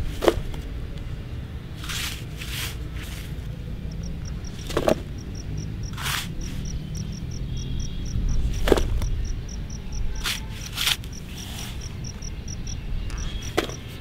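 Pink plastic toy shovel scraping into loose dry soil and tipping clods into a plastic toy dump truck bed, a dozen or so separate scrapes and pours. An insect chirps steadily, about three times a second, from about 4 seconds in until near the end.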